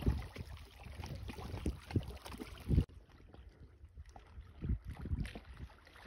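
Wind buffeting the microphone over rippling river water: an uneven low rumble with gusty thumps. The sound changes abruptly a little under three seconds in, at an edit.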